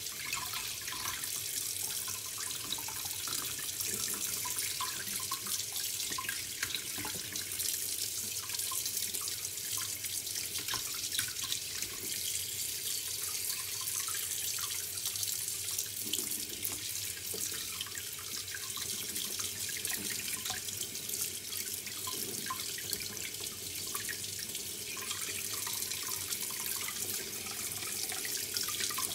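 Kitchen tap running steadily onto a roasted red pepper and into a plastic tub in a stainless-steel sink, water splashing as fingers rub the charred skin off under the stream.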